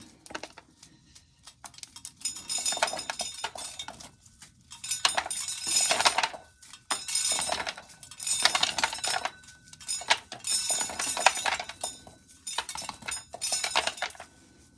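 Dry corn kernels rattling and clinking as ears of corn are shelled, in repeated bursts about a second long with short pauses between them.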